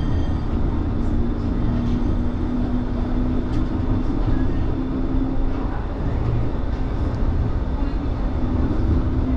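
Low-floor light-rail tram running, heard from inside its cab: a steady low rumble with a low hum that holds for several seconds, drops out around the middle and comes back near the end.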